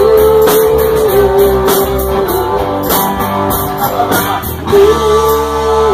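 Live rock band playing in a bar: electric guitar and drums with a steady cymbal beat, under a singer holding long sung notes at the start and again near the end.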